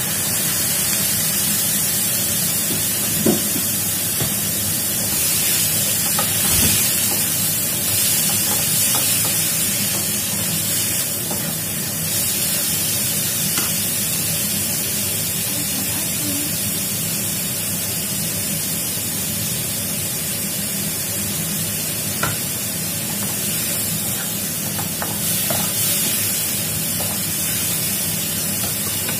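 Minced pork sizzling steadily as it fries in a nonstick wok, with a wooden spatula scraping and giving a few sharp knocks against the pan as it is stirred.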